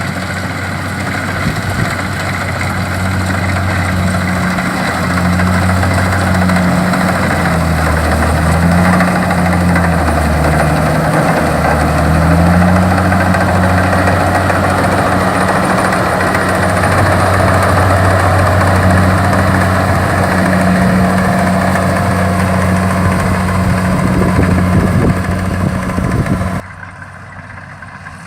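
Kubota DC-70 rice combine harvester's diesel engine running steadily under working load, with the hiss and rattle of its threshing machinery; the engine note wavers a little, then the sound drops off abruptly near the end.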